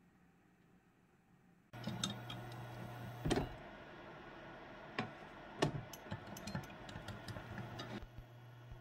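Near-silent room tone, then from about two seconds in, irregular clicks and knocks of kitchen things being handled on a counter: a glass measuring cup of beaten egg with chopsticks in it, and a plastic container being packed with kimbap slices. A low steady hum runs beneath.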